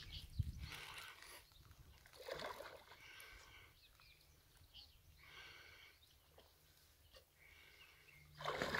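Soft, intermittent sloshing and splashing of shallow water as a hooked carp thrashes near a landing net, in several brief swells a second or two apart.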